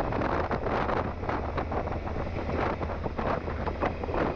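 Wind buffeting a motorcycle-mounted camera's microphone at riding speed, in uneven gusts, over a low steady drone from the motorcycle.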